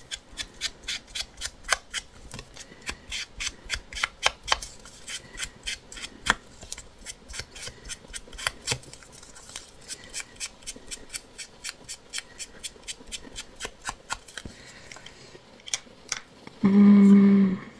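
Small craft scissors snipping quickly and repeatedly, about four or five sharp clicks a second, cutting paper or lace for a collage. Near the end, a person hums a brief 'mm'.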